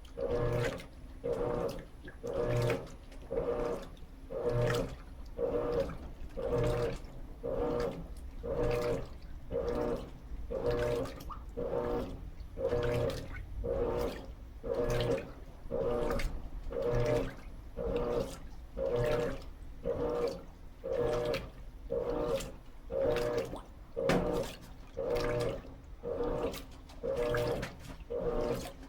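Electrolux LT13B top-load washing machine agitating a load of sheets and towels in water: the motor and agitator swing back and forth with water sloshing, in regular strokes about once a second.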